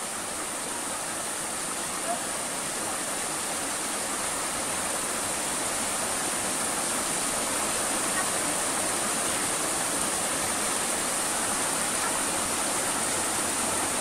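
Stream water running over rocks: a steady, continuous rushing that swells slightly.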